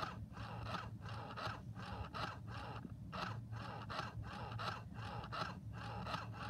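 Broken speaker inside a plush toy putting out a distorted, raspy crackle that pulses about four times a second over a low hum: the speaker is failing.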